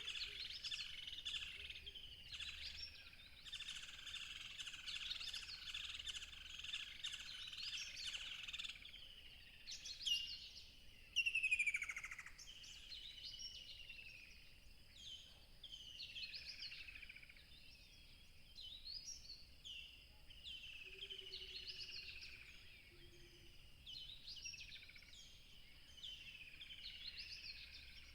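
Wild birds singing. Several birds chirp at once for the first eight seconds or so; after that, short falling phrases repeat every second or two.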